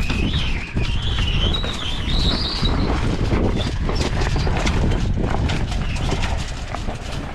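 Strong wind buffeting the microphone with a steady low rumble. A wavering high whistle rises and falls over the first three seconds, and light knocks and taps are scattered through.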